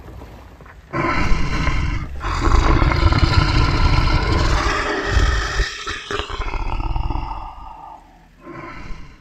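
Big cat roaring: a short roar about a second in, then a long drawn-out roar lasting several seconds, and a brief one near the end.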